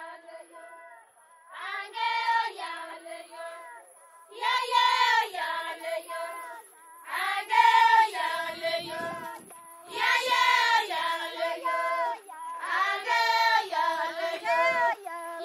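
Maasai women singing together in high voices: five short phrases of held notes, each about two seconds long, with brief pauses between them.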